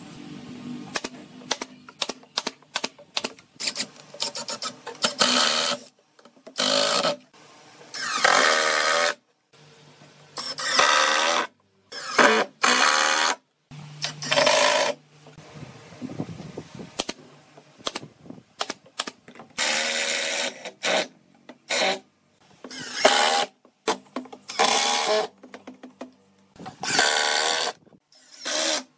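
Pneumatic brad nailer firing a quick run of sharp shots into pine boards. After that, a cordless drill-driver runs in short bursts of about a second each, driving screws, with a pitch that wavers as each screw goes in.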